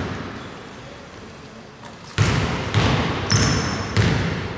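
A basketball dribbled on a hardwood gym floor before a free throw: one bounce at the start, then four bounces about two-thirds of a second apart from about two seconds in, each ringing on in the large hall.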